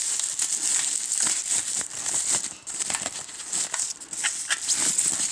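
Plastic packaging crinkling and crackling in irregular bursts as an item is unwrapped by hand.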